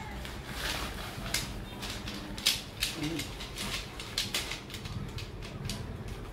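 Crinkly rustling of plastic packaging and nylon tent fabric being pulled out and handled, with clicks and clatter from a bundle of folded tent poles. The sound comes as irregular short rustles and sharp clicks, sharpest about two and a half seconds in.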